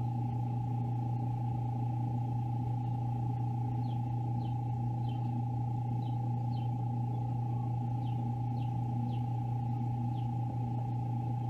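Steady hum of an egg incubator running, with a run of faint, short, high peeps that fall in pitch starting about four seconds in, coming every half second to a second: a chick calling from inside its egg as it hatches.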